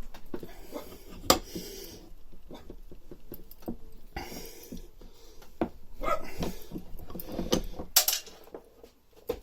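Sharp metallic clicks and clinks from a roller bearing being pressed into a Honda 536 roller mower's gearbox housing with a bench vise and a washer, the two loudest clicks about a second in and near the end.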